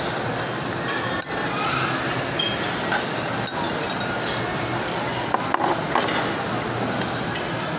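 Metal spoon and fork clinking and scraping against a bowl while eating, a few sharp clinks scattered through, over a steady background of crowd noise.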